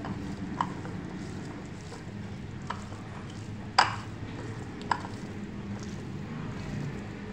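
A hand mixing raw boneless chicken pieces with spices in a ceramic bowl, with a few sharp clinks against the bowl, the loudest about four seconds in, over a steady low hum.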